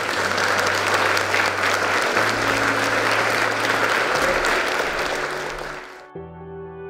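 Audience applauding over background music; the clapping dies away about six seconds in, leaving the music alone.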